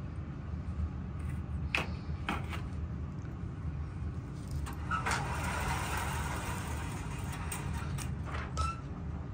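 Steady low rumble of an indoor shooting range, with a few sharp clicks and knocks of gear being handled at the bench, and a rustling hiss for a couple of seconds in the middle.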